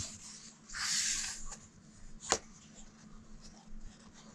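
A paper page of a large book being turned: a short papery rustle about a second in, then a single light tap about a second later.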